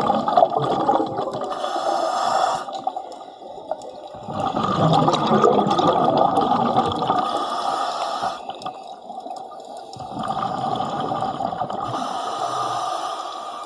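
A diver breathing underwater through a regulator: long stretches of gurgling exhaled bubbles alternate with shorter hissing breaths in, about three breaths, one every six seconds or so.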